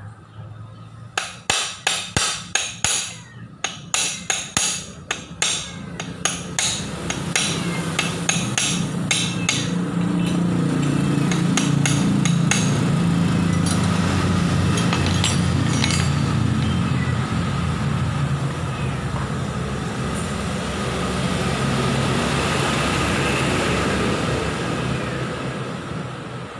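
Repeated sharp metal strikes, about two a second for several seconds, like hammering on metal, followed by a louder steady mechanical running sound.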